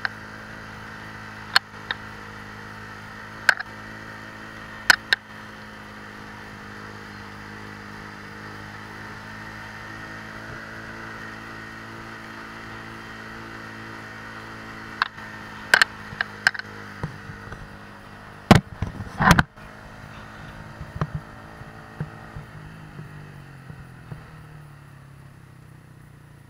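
Motorcycle engine running steadily while riding, with sharp knocks now and then, the loudest a quick cluster about two-thirds of the way through. Near the end the engine note drops lower.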